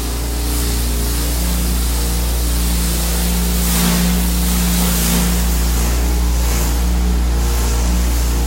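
Pressure washer running: a steady engine hum under the hiss of the high-pressure water spray, the hiss swelling and easing a few times.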